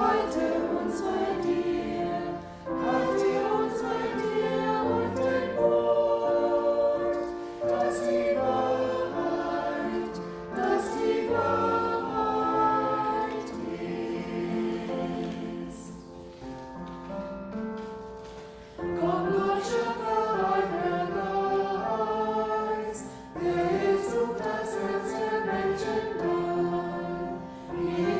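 Group of voices singing a hymn in phrases, with held notes and a softer passage in the middle.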